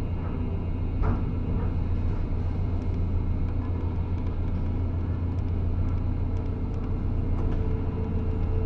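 Docked roll-on/roll-off ferry's engines running with a steady low rumble, with a single knock about a second in.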